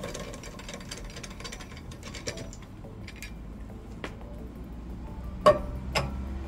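Rapid mechanical clicking and rattling for the first few seconds, then scattered ticks, then two sharp knocks about half a second apart near the end.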